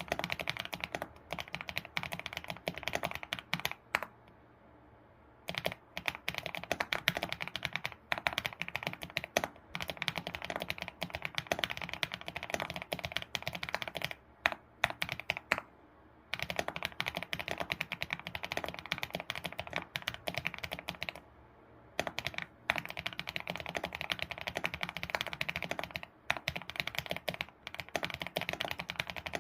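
ABKO computer keyboard being typed on quickly, a rapid run of key clicks, stopping briefly about three times for a second or so before resuming.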